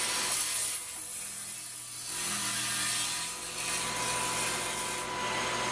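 Table saw running and cutting through 2x10 lumber: the blade makes a steady hiss through the wood over a constant whine.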